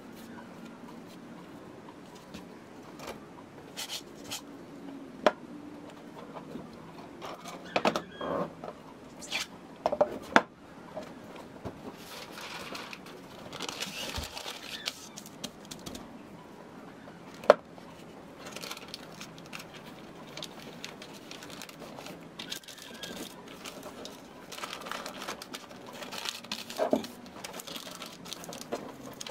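Paper rustling and crinkling as a painting is wrapped in a sheet of paper, broken by a few sharp knocks on the wooden tabletop.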